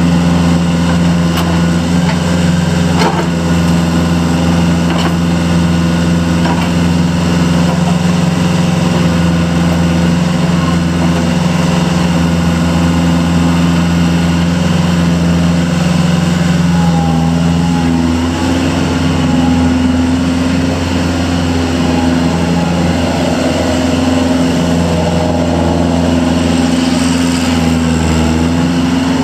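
Kubota L45 tractor loader backhoe's 45 hp Kubota diesel running steadily, with its note shifting to a slightly different pitch about seventeen seconds in.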